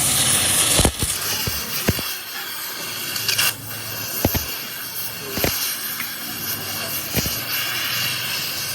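Steady hissing noise with several sharp knocks, one every second or two.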